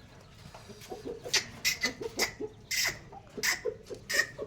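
Parrot giving short, harsh calls over and over, about two or three a second, starting about a second in.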